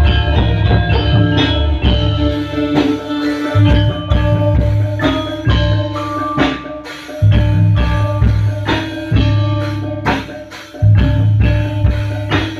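Javanese gamelan-style band playing for a kuda lumping troupe: bronze saron metallophones struck with mallets over electronic keyboard, drum kit and a heavy bass. The bass drops out briefly a few times.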